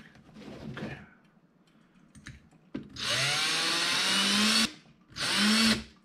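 Ryobi cordless drill with a 1/16-inch bit drilling into a die-cast metal car body. It makes two bursts: a run of under two seconds, then a shorter one of under a second. The motor pitch rises as each burst starts.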